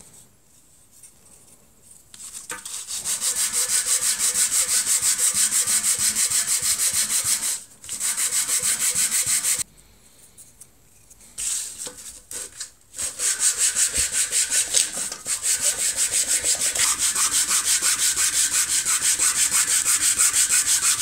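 A plywood piece being hand-sanded by rubbing it back and forth over sandpaper laid flat on a table. The strokes are fast and even and come in runs of several seconds, with a few short pauses; the sanding starts a couple of seconds in.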